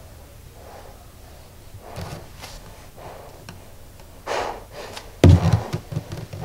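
Heavy breaths hissing through a gas mask respirator, in a few separate puffs. A loud thump comes about five seconds in, followed by a few smaller knocks.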